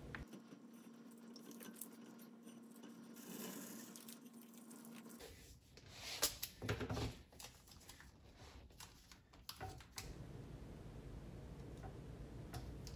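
Faint handling of thin masking tape on a painted ceramic platter: quiet rustling, with a few brief louder sounds about six to seven seconds in.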